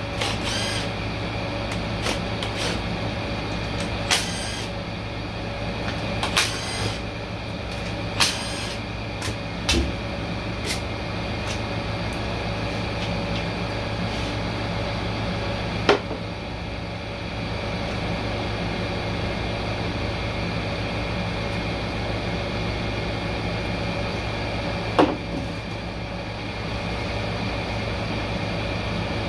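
Cordless power ratchet whirring in short bursts, four or five times in the first ten seconds, backing out the oil pan bolts of a Ford 10R80 ten-speed automatic transmission, over the steady hum of an air conditioner. Two sharp knocks follow later on.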